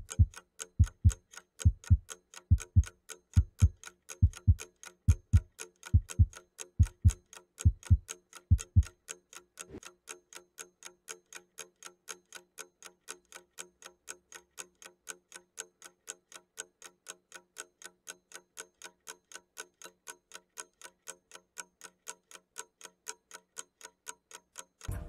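Ticking clock sound effect, about three sharp ticks a second. Deep thumps a little more than once a second run under the ticking and stop about nine seconds in, leaving the ticking alone.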